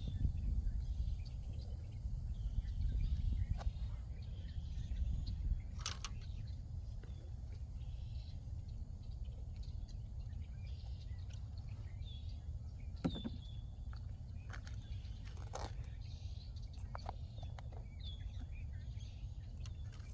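Small birds chirping now and then over a steady low outdoor rumble, with a few sharp clicks.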